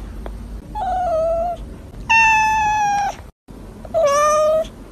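A cat meowing three times, with high-pitched calls each about a second long.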